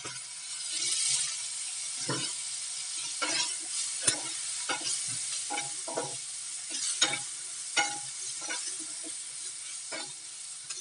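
Wooden spatula stirring chopped tomatoes, onions and green chillies in a frying pan over a steady sizzle of hot oil. The spatula scrapes and taps against the pan about once a second.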